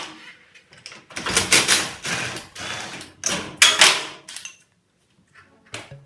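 A run of loud clattering knocks and scrapes over about three seconds, with the loudest ones about a second and a half in and again near the middle, then near silence.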